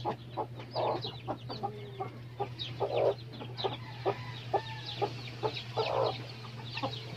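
Newly hatched chicks peeping over and over in quick, high, falling notes, with a hen clucking now and then, loudest about 3 s in.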